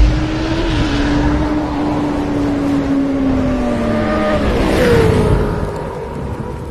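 Motorcycle engine sound effect: a deep boom at the start, then a steady, high engine note that sinks slowly. About five seconds in a whoosh and a falling pitch sound like the bike passing, and the sound then fades.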